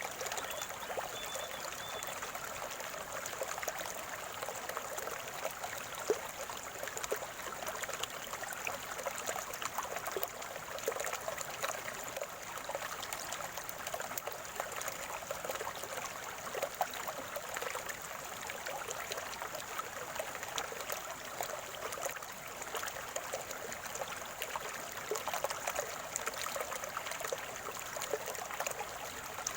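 Calm stream of water trickling and gurgling steadily.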